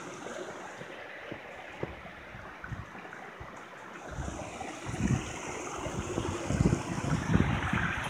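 Small rocky stream running and trickling beneath a rock bridge, a steady rush of water. From about halfway, irregular low thumps and rumbles join it.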